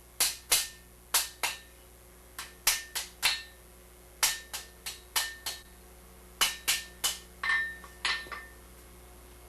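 Hand hammer striking hot steel to close a forged finial tightly against a baluster bar: about twenty sharp, briefly ringing blows in short bursts of two to five, stopping about a second before the end.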